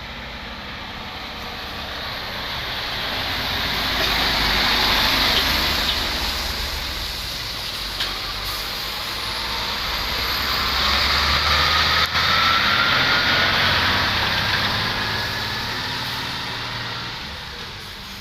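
Trucks passing close by, one after another: the engine and tyre noise swells up and fades twice. During the second pass a whine climbs steadily in pitch as the truck pulls away.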